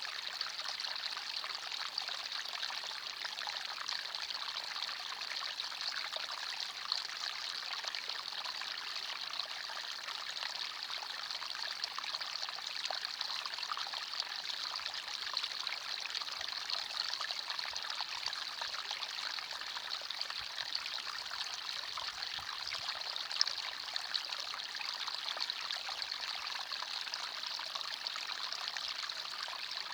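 Forest stream flowing steadily, water trickling and splashing over rocks in a constant bright rush.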